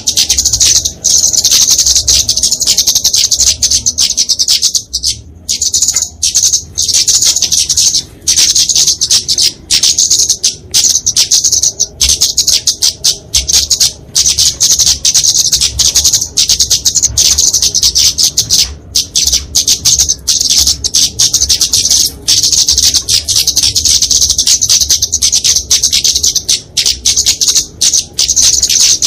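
Flowerpecker (kemade) giving a dense, rapid stream of sharp high-pitched calls with only brief breaks: its agitated fighting call.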